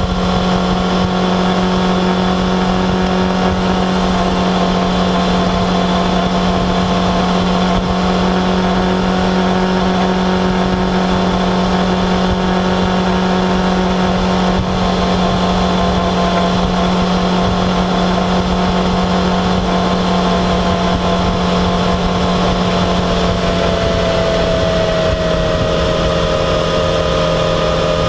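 Yamaha XJ6F's 600cc inline-four engine running at a steady cruising pace, with wind noise on the microphone. The engine note drops slightly near the end as the bike eases off.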